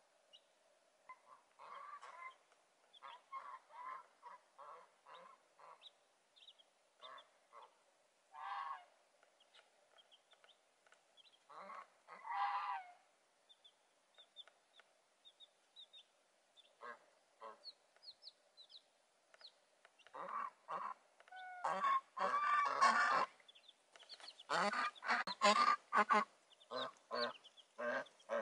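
Domestic white geese honking in short repeated calls, sparse at first and then coming thick and loud over the last third. High, thin chick peeps sound between the honks.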